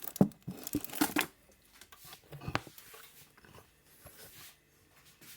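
Kitchen handling noises: irregular clicks and knocks of utensils and containers, with some crinkling, clustered in the first second and a half and again a little past the middle, then fading.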